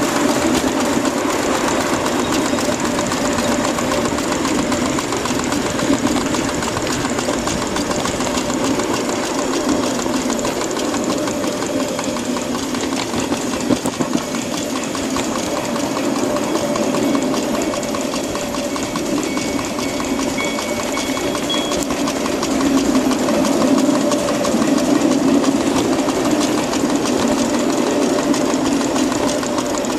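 A 1.5-inch-scale Little Engines 2-6-0 live steam locomotive running along 7.5-inch-gauge track, heard from on board: a steady, rapid beat of exhaust with the running noise of the engine and wheels.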